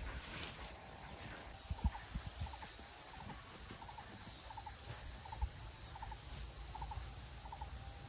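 An animal calling in short three-note bursts, repeated about every two-thirds of a second from about two seconds in, over a steady high whine.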